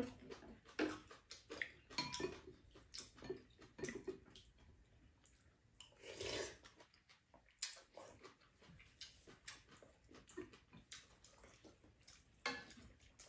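Quiet table eating sounds: lip smacks and chewing, with spoons and chopsticks clicking against bowls. A longer slurp of broth and bean sprouts comes a little past the middle.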